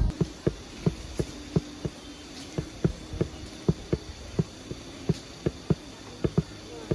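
A run of short, light knocks, roughly three a second and fairly even, over a faint steady hum.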